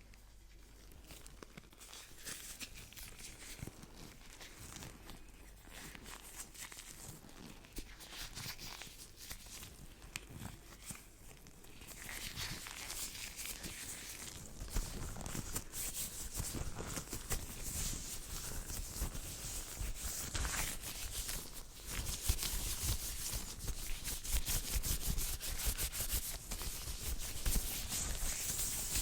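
Fast, soft hand sounds: hands rubbing, brushing and swishing against each other in quick, continuous strokes. The sounds are quieter at first and grow louder and busier after about twelve seconds.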